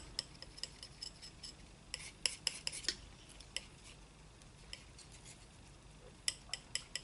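Metal palette knife mixing a little white into phthalo blue paint, its blade making light clicks and taps against the palette in quick clusters. The clicks are thickest about two to three seconds in and again near the end.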